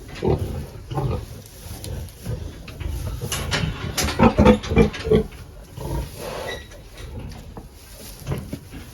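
Pigs grunting: a string of short grunts, with a quick run of louder grunts in the middle.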